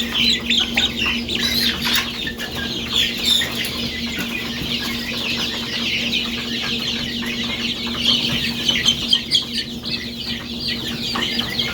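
A brood of baby chicks peeping nonstop, many short, high, falling peeps overlapping one another.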